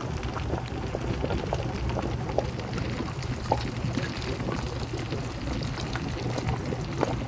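Stockpot of soup bubbling at a simmer, with small pops, while a spoon stirs through the broth, meatballs and vegetables.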